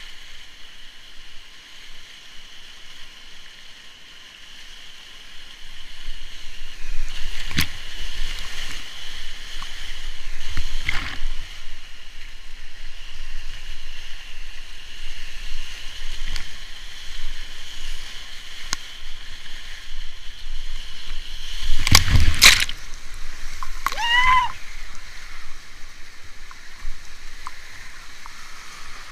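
Churning white-water rapids heard close up from a kayak, a steady rushing of water with the paddle and breaking waves splashing and slapping hard several times, loudest about three-quarters of the way through. A brief high sound that bends in pitch follows soon after the loudest slap.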